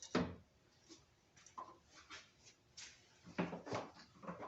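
Knocks and clunks of car parts being handled and fitted into the engine bay. One sharp knock comes right at the start, a few light taps follow, and a quick cluster of knocks comes near the end.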